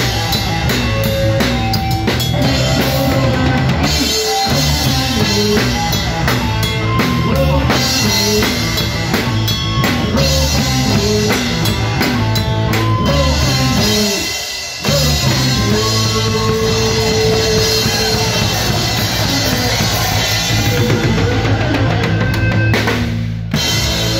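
Live rock band playing, with the drum kit close by and loudest: kick drum, snare and cymbals driving a steady beat under the rest of the band. The music drops out briefly a little past halfway, then comes straight back in.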